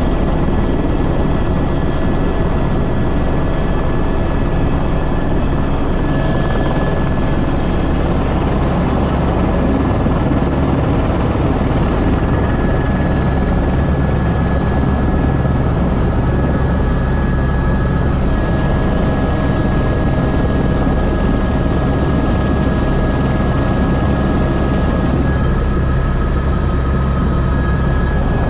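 Airbus H125 (AS350 B3) single-engine helicopter running, heard from inside the cockpit: a steady fast low rotor beat under a constant turbine whine.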